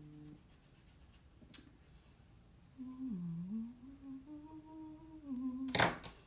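A woman humming a short wandering tune to herself, quietly, for about three seconds, after a brief hummed note at the start. Near the end a short loud clatter cuts in.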